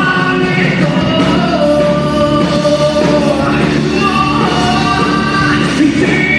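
A live band playing a song with a lead vocal over the accompaniment.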